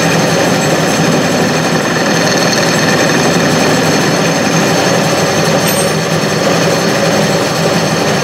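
Clausing 6930 metal lathe running under a variable-frequency drive, its chuck spinning at speed with a steady mechanical rattle. The noise shows a little vibration, not too bad for a lathe that is not yet levelled.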